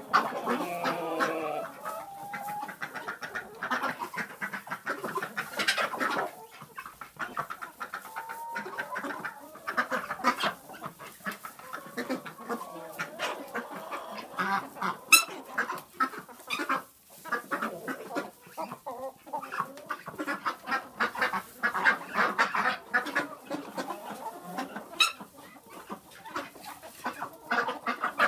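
A flock of hens clucking continuously, many short overlapping calls. There are a couple of sharp clicks, the loudest about halfway through.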